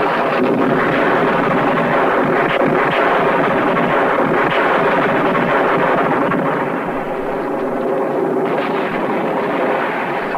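War-film battle sound effects: a continuous dense din of artillery shells exploding against a building, with flying debris and no clearly separate bangs. It eases slightly about two-thirds of the way through.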